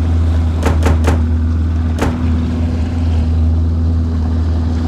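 Outboard motor running steadily at trolling speed, a constant low drone with a steady hum tone over it. Three quick sharp clicks come about a second in, and another about a second later.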